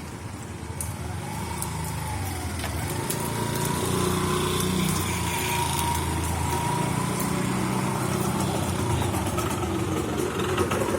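A motor engine running steadily with a low rumble, getting louder a few seconds in.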